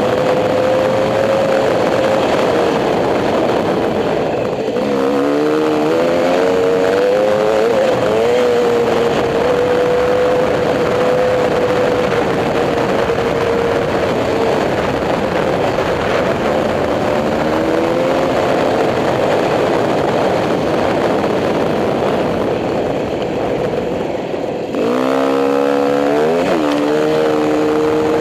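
Dirt bike engine running at riding speed, with wind noise over the microphone. The engine note dips and climbs briefly about five seconds in. Near the end the throttle closes for a moment, then the revs climb again in several quick rises.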